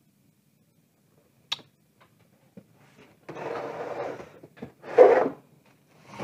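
A short click, then the plastic stand of an LED television scraping on a wooden workbench as the set is turned, twice, the second scrape louder.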